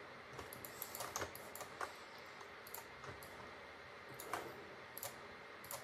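Faint, scattered clicks of a computer mouse and keyboard keys, irregular and a few to a second at most.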